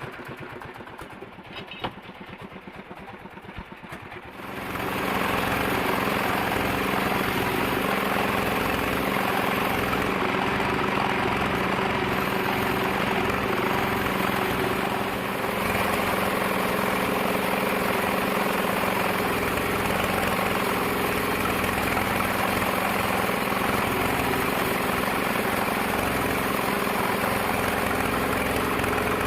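Sawmill machinery running with a steady engine-like drone. Fast soft ticking at first, then about four seconds in the drone rises to a loud, even level and holds.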